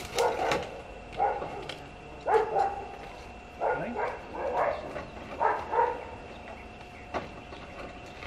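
A dog barking repeatedly, short barks often in pairs, stopping about six seconds in.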